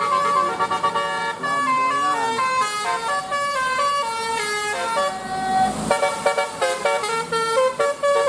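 Bus 'telolet' Basuri multi-trumpet musical horn playing a tune of stepped notes. A short rushing noise cuts in about five seconds in.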